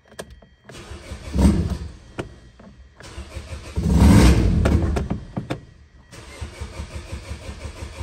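A 2011 Hyundai Sonata's GDI four-cylinder engine being cranked by its starter in three tries with short pauses between them. There are louder swells about a second and a half in and around four seconds in, where it struggles to catch. The engine won't stay running, a no-start the owner later traces to the fuel tank being practically empty even though the gauge showed one bar.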